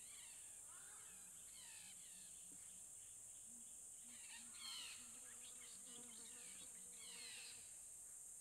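Faint bush ambience: a steady high insect drone with repeated short, falling bird calls. The calls cluster most loudly a little after halfway.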